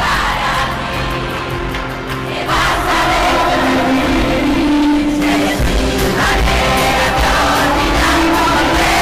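Music with sung vocals, growing louder about two and a half seconds in.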